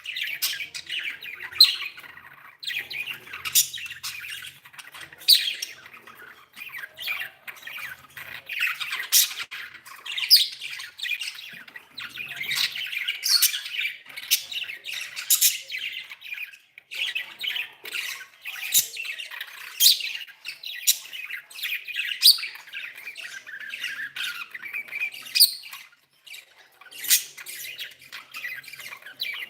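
Budgerigars chattering without pause: a dense warbling chatter broken by frequent sharp squawks and chirps.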